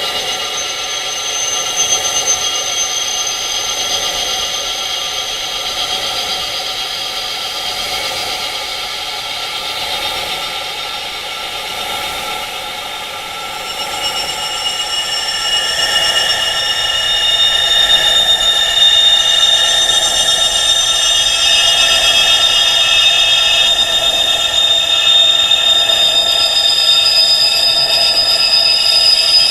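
Wind chimes ringing continuously, with many overlapping high tones that hold and blend into one another. About halfway through, the chiming grows louder and fuller, with higher tones joining in.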